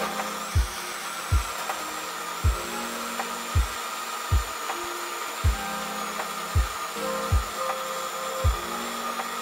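Electric mixer grinder motor running steadily at speed, blending a wet mix of soaked oats, almonds, chia seeds and banana, with a steady high whine. A deep bass beat of background music falls about once a second underneath.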